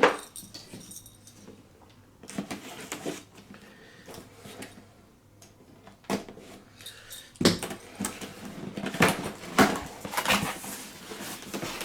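Cardboard packaging being handled and pried open at one end, with scattered taps, scrapes and rustles that grow busier in the second half.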